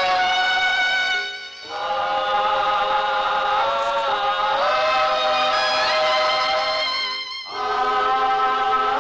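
A choir singing slow, long held notes. The singing breaks off briefly twice between phrases, about a second and a half in and again about seven seconds in.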